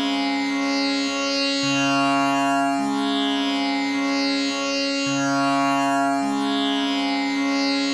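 Tanpura drone tuned to C sharp, its strings plucked in a repeating cycle about every three and a half seconds. Each note rings on into the next, so the sound is a steady, overtone-rich drone on the tonic and fifth.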